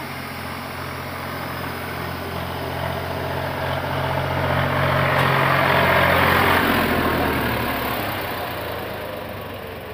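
A motor vehicle passing close by: its engine hum and road noise build up, peak about six seconds in, then fade away.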